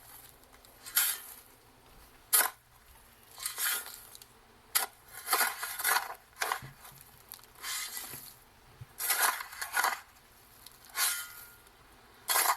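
Shovel digging in dirt: a dozen or so separate hits and scrapes of the blade in the soil at uneven intervals, some sharp and brief, others drawn out over about half a second.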